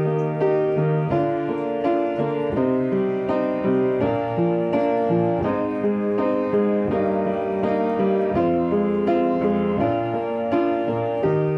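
Solo piano playing a slow ballad accompaniment: chords and broken-chord figures over held bass notes, with no voice.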